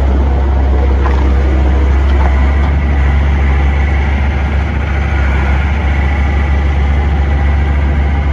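John Deere 325 skid steer loader's 70 hp John Deere diesel engine running steadily.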